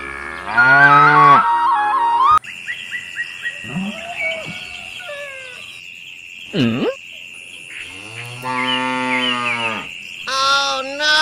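Cows mooing: one long moo about half a second in, then two more near the end, over a steady high insect-like background with a few bird chirps. A short sweeping whoosh comes about midway.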